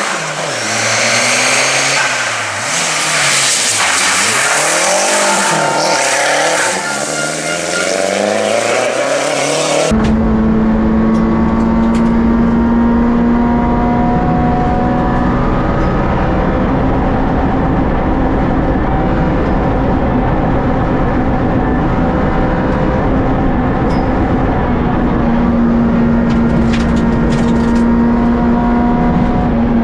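A rally car's engine revving up and down through the gears as it passes. About ten seconds in it cuts abruptly to a Citroën Saxo N2 rally car's engine heard from inside the cabin, held at high revs, with a loud drone and road rumble and a few brief drops in pitch at gear changes.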